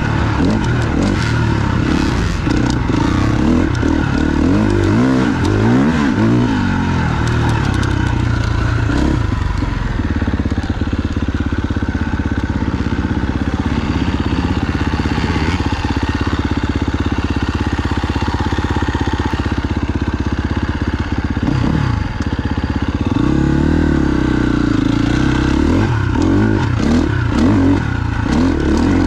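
KTM 350 XC-F's single-cylinder four-stroke dirt bike engine being ridden, revving up and down with the throttle. The pitch rises and falls repeatedly in the first third and again near the end, holding steadier in between.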